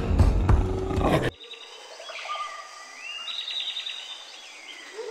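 Music with drum hits cuts off abruptly about a second in, giving way to rainforest ambience. A bird gives repeated calls that rise in pitch and run into fast series of high notes, over a faint background hum.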